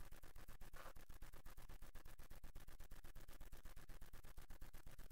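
Quiet pause with only faint background hiss, pulsing in a fast regular flutter of about ten beats a second.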